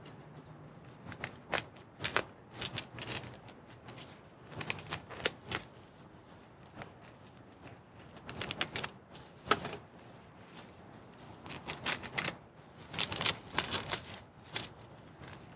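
Paper packaging rustling and crinkling as it is unwrapped and unfolded by hand, in short irregular spells of crackles with quieter gaps between.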